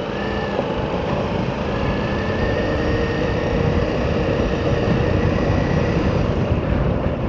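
Ducati Multistrada motorcycle engine running steadily, a continuous drone that grows slowly louder, while it rides a rough off-road trail.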